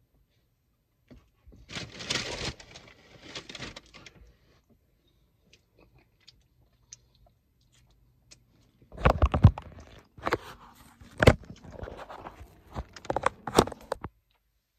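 Eating fried chicken close to the microphone: crunching and tearing of the breading and meat, and chewing with sharp wet clicks and smacks. The clicks and crunches come in a dense, louder run in the second half.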